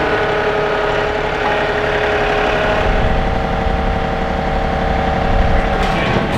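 John Deere compact tractor's diesel engine running steadily at low speed, with only slight changes in pitch.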